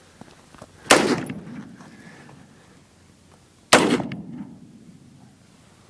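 Two shots from an AR pistol in .223, about three seconds apart, each followed by a tail that fades away over a second or two.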